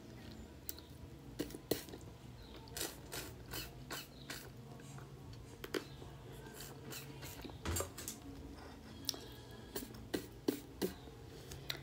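Eating by hand from a glass bowl: faint, irregular soft clicks and taps of fingers scooping beans and chicken against the bowl.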